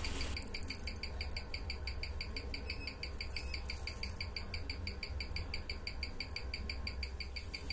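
Orient 46941 automatic movement ticking, a rapid even beat of its balance and escapement at 21,600 beats per hour, about six ticks a second.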